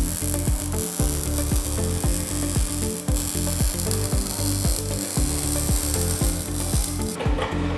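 A power tool cutting into a Porsche Carrera 4S's exhaust, giving a steady, high-pitched noise that stops suddenly about seven seconds in. Under it runs background music with a regular, heavy bass beat.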